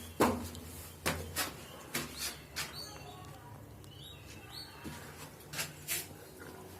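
Irregular sharp knocks and taps, about ten of them, with a few short high chirps around the middle and a low steady hum.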